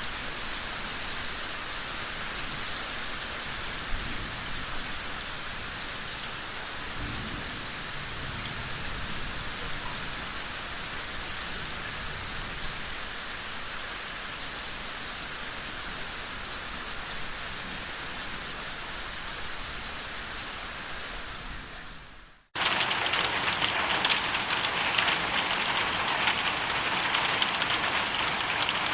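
Steady heavy rain of a thunderstorm pouring on surfaces. About 22 seconds in it fades out briefly and comes back louder and hissier.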